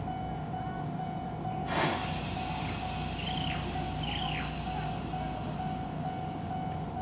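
Kobe Electric Railway train at the platform, with a sudden burst of air hiss about two seconds in that fades away over the next few seconds. A steady tone runs underneath.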